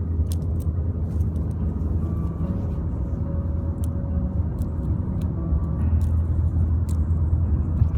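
Steady low road rumble of a moving car heard inside its cabin, with a few faint light clicks.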